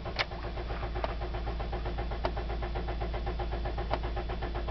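A 2009 Toyota Corolla's four-cylinder engine cranking over on the starter in cold weather, an even rhythmic churning over a steady low hum, as part of the car's hard-starting problem in the cold.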